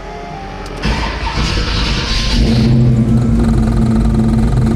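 Fuel-injected Chevrolet 502 big-block V8, fitted with an aftermarket cam and intake, starting up about a second in, with a hissing noise for the first couple of seconds, then settling into a steady idle on its newly loaded fuel curve.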